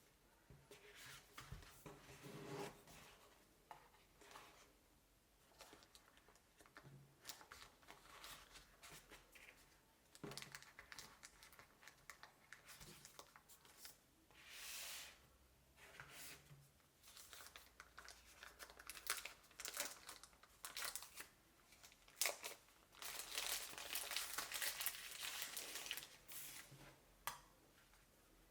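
Faint rustling and crinkling of product packaging being unwrapped by hand, with some tearing and a few light clicks. The crinkling is densest near the end.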